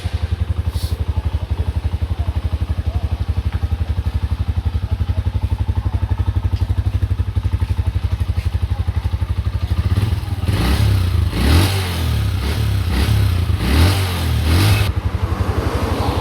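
Honda TMX 125 Alpha's single-cylinder four-stroke engine running at a steady idle just after starting on its electric start, then revved up and down several times from about ten seconds in.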